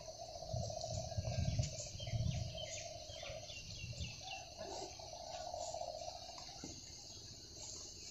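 Rural outdoor ambience: a steady high insect buzz with a few short bird chirps, and a low, even hum that stops about two-thirds of the way through. Low rumbling comes and goes in the first half.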